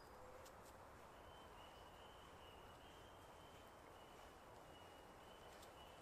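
Near silence: quiet forest ambience, with a faint thin high tone held for about five seconds, starting about a second in.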